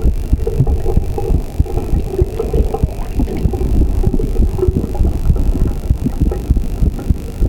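Heart sounds picked up against the chest: loud, low, irregular thumps.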